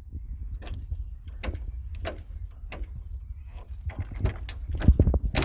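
A bunch of keys jangling and clicking against a VW T4 van's front door lock as the key is worked in the newly fitted key cylinder, with a couple of louder knocks near the end.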